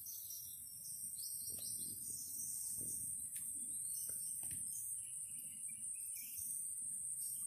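Outdoor insect drone, a steady high-pitched hiss like crickets or cicadas, with scattered short bird chirps over a low rumble.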